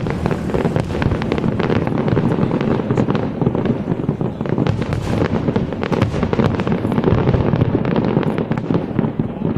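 Fireworks display: a dense, continuous run of rapid overlapping bangs and crackles over a low rumble.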